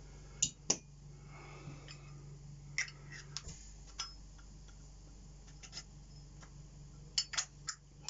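Zippo lighter being handled and put back together: scattered light clicks and metal clinks, a couple about half a second in, a few in the middle and a quick run of clicks near the end, over a faint steady hum.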